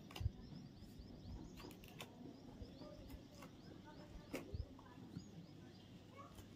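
Faint chirping of small birds, with a few sharp knocks of a knife chopping into a coconut, the strongest near the start and about four and a half seconds in.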